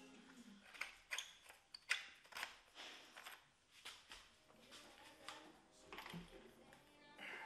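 Faint, irregular clicks and clinks of hand tools on metal, about one or two a second, while bolts are worked loose on an engine's intake manifold.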